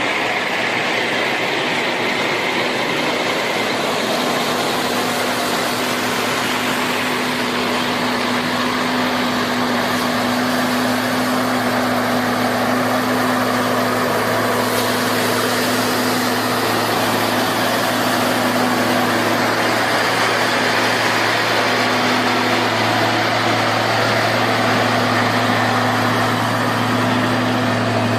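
Heavy road-construction machine engine running steadily, a constant low drone under a wash of mechanical noise.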